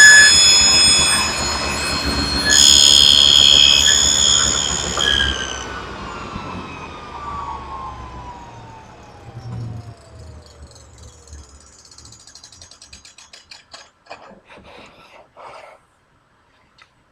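Table saw running and cutting a dado pass in wood, with a high whine that grows louder about two and a half seconds in. About five seconds in the motor is switched off and the blade coasts down, its whine falling steadily in pitch for several seconds, followed by a few faint knocks.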